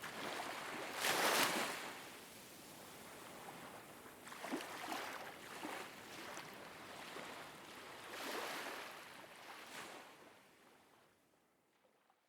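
Ocean surf: waves washing in and drawing back in repeated swells, the loudest about a second in, then fading out near the end.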